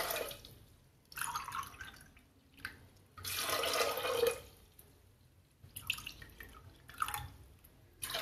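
Water poured from a cup into a pressure cooker of soaked chickpeas: two pours of about a second each, with pauses between, then a few smaller splashes and drips.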